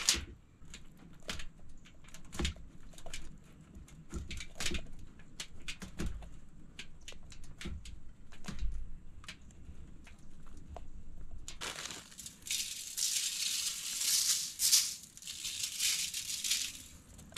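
Scattered light clicks and rustles of hands working raw Cornish game hens onto a wooden spit over aluminium foil. About twelve seconds in, a high, pulsing, shaker-like hiss sets in for around five seconds and is the loudest sound.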